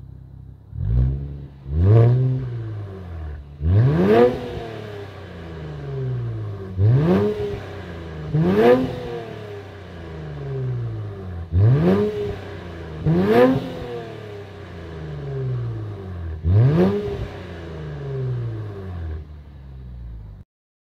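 Infiniti Q60's 3.0-litre twin-turbo V6 (VR30DDTT) free-revving through an MBRP cat-back exhaust while the car stands still. About nine sharp throttle blips, mostly in pairs, each shooting up quickly and falling back to idle. The revving stops shortly before the end.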